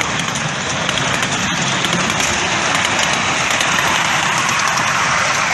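Miniature railway train rolling past close by: a steady rushing noise from the wheels running on the track.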